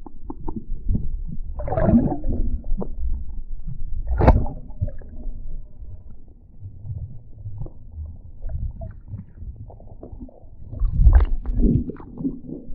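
Water sloshing and splashing around a kayak, with irregular knocks and low rumbling against the hull, as a small smallmouth bass is brought alongside and landed. Sharper splashes or knocks come about 2 s in, about 4 s in and again near the end.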